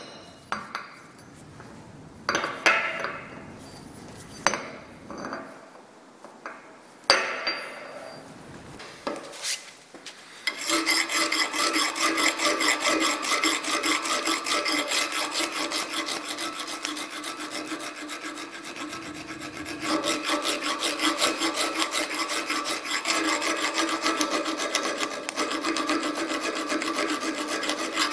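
A few scattered knocks and clinks as the steel hammer head is handled in the vise. Then, from about ten seconds in, a round file rasps steadily back and forth inside the eye of the clamped Spear and Jackson cross pein hammer head, with a steady ringing tone from the steel.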